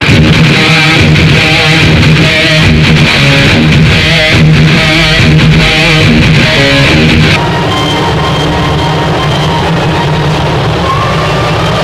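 Electric guitar music, with plucked and strummed notes, for about seven seconds. It then cuts off abruptly to a steady noise with a few faint held tones.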